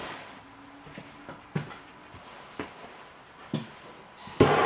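A few light knocks as wood is handled in an antique wood cookstove's firebox, then, near the end, a handheld propane torch comes on suddenly with a loud steady hiss to light the fire.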